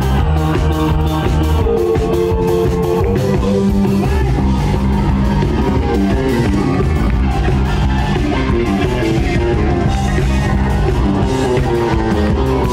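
A live rock band playing, with an electric bass guitar in the mix; the level is loud and steady throughout.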